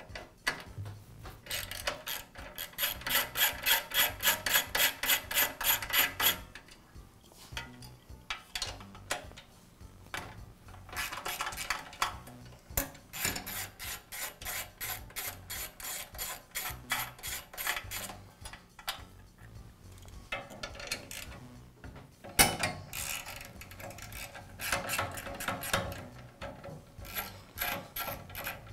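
Socket ratchet wrench clicking rapidly, about five clicks a second, in several runs as it backs out the fuel tank's mounting fasteners. There is a single sharp knock partway through.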